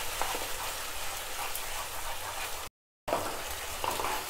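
Onion and green capsicum pieces sizzling in hot oil and sauces in a nonstick wok, stirred with a spatula that scrapes faintly now and then. The sound drops out completely for a moment about three seconds in, then the sizzling resumes.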